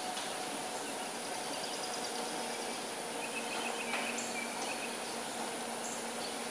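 Outdoor background ambience: a steady hiss with a brief series of faint high chirps about three seconds in.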